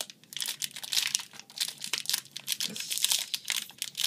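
Crinkling and tearing of a Magic: The Gathering M13 booster pack's foil wrapper as it is worked open by hand, with a quick, irregular run of crackles. The pack is stiff and awkward to open.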